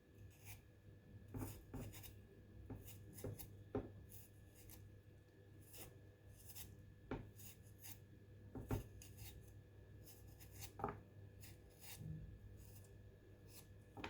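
Faint, scattered scrapes and light clicks of a kitchen knife working a small piece of fresh ginger root.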